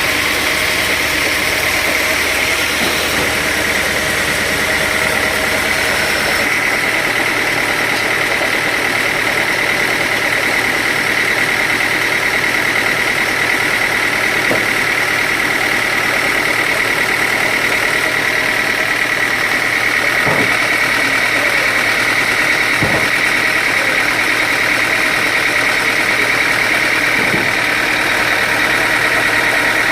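Sawmill machinery running steadily with a constant high whine, and a few sharp knocks in the later part.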